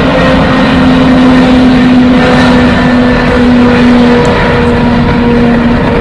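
Antonov An-225's six Progress D-18T turbofan engines at takeoff power as the aircraft rolls down the runway: a loud, steady jet roar with a droning hum in it. The hum steps slightly lower in pitch about four seconds in.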